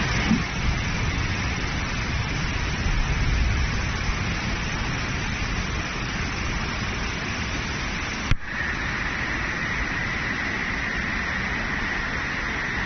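Muddy floodwater rushing down a swollen river: a steady, even rush of churning water. A single click about eight seconds in.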